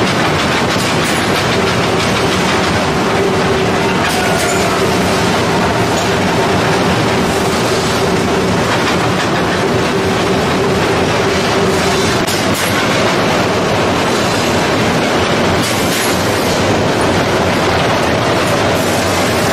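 Hot steel rolling mill running: a loud, continuous clatter of red-hot bar passing through the roll stands, with a steady machine tone from about two to ten seconds in and a few sharp metallic knocks.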